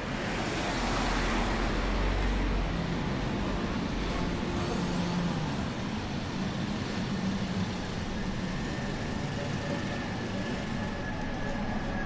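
Street traffic: a motor vehicle passes close by with a deep rumble that is strongest over the first three seconds or so, then fades into steady city street noise.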